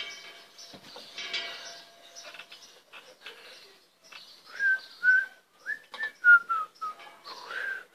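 A person whistling a short run of clear notes, some of them sliding in pitch, starting about halfway through; faint outdoor noise before it.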